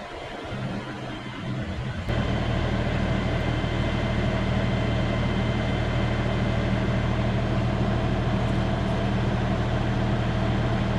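Tractor engine running steadily, getting suddenly louder about two seconds in and then holding an even note.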